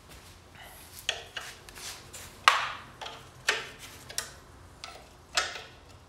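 Metal hand tools clinking and knocking against a BMW N54 engine: a string of irregular sharp metallic knocks, each ringing briefly, the loudest about two and a half seconds in.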